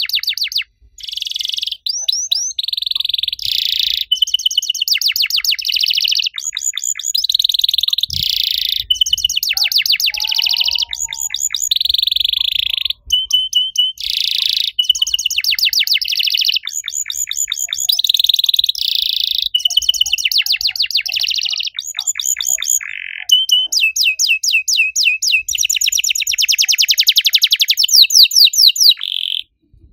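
Domestic canary singing on and on: high, rapid trills alternating with held buzzy notes, in long phrases with only brief breaks.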